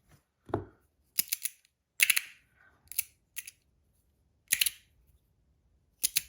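Bronze magnetic slider fidget (a Rapt) clicking as it is worked: its plates snap between magnet positions in short groups of sharp metallic clicks, about seven groups at uneven intervals.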